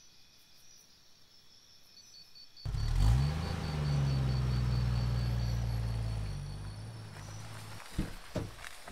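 A low rumble, engine-like, starts suddenly, rises in pitch, holds steady for a few seconds and then fades. Under it runs a steady high insect chirping, and two soft knocks come near the end.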